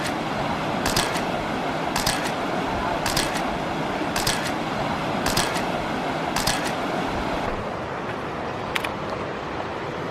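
Camera shutter clicking at a steady pace of about one shot a second, each click doubled, over the steady rush of river water. The clicks stop after about six and a half seconds, with one more near the end.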